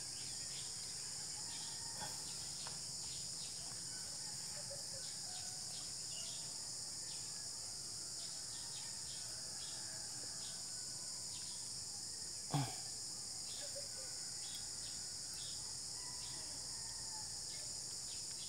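Steady high-pitched insect chorus, with a few faint clicks. About twelve and a half seconds in, one short louder sound drops in pitch.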